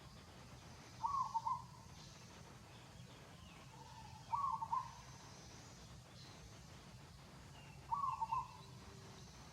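A bird calling the same short phrase of a few quick notes three times, evenly spaced about three and a half seconds apart, over a faint steady low hum.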